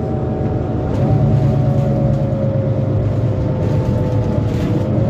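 Mercedes-Benz Citaro C2 city bus under way, heard from inside: a steady diesel engine rumble with a thin drivetrain whine. About a second in the rumble strengthens and the whine drops in pitch, sinking slowly until it climbs again near the end.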